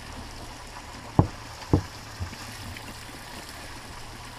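Mountain bike jolting over wooden railway sleepers: two sharp knocks a little over a second in, about half a second apart, and a lighter one soon after, over a steady low rumble of tyres rolling on rough ground.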